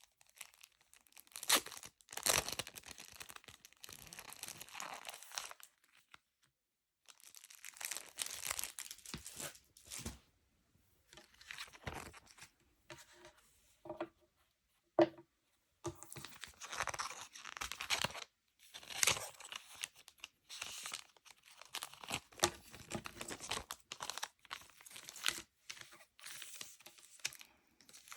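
Packaging being handled and torn open: crinkling and tearing in bursts with short pauses, and one sharp tap about halfway through.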